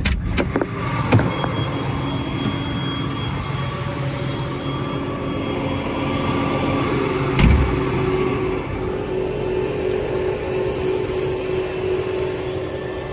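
John Deere 7R 310 tractor running steadily at a standstill, heard from outside the cab, with a steady hum; a single thump about seven and a half seconds in.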